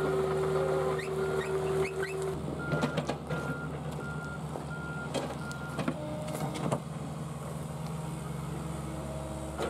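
JCB 8040 ZTS mini excavator's diesel engine running under load, with a steady whine over it for the first couple of seconds. Then its travel alarm beeps about twice a second for several seconds and again near the end, with scattered knocks and cracks as the machine works at the stump.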